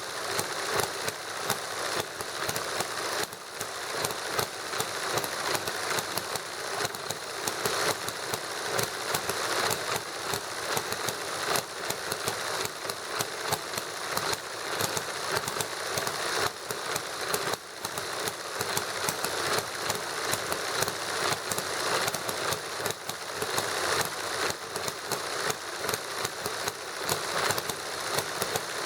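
Model hit-and-miss gasoline engine, fuelled with white gas, running: a fast, even clatter of small mechanical clicks with irregular louder pops.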